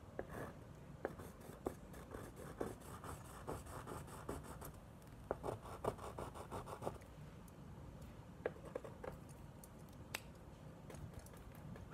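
Paintbrush scrubbing and dabbing white paint onto a textured painting surface: a run of short, irregular scratchy strokes, then a few sharper taps in the later seconds.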